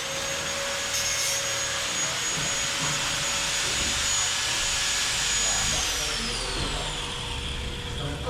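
Power tool, an electric angle grinder cutting the metal ceiling framing: a steady high whine over a harsh noise, with the whine dropping in pitch about six seconds in.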